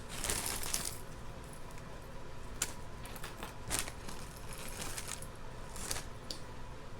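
Costume jewelry jangling and clinking as pieces are handled and sorted: a second of jangling at the start, then a few scattered light clicks of metal pieces being set down.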